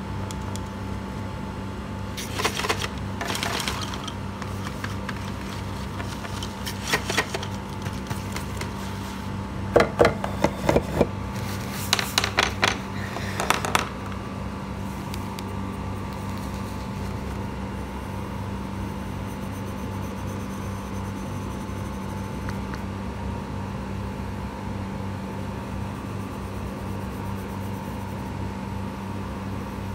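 A steady low hum runs throughout. Several short bursts of rustling and tapping from handling the craft materials come between about 2 and 14 seconds in.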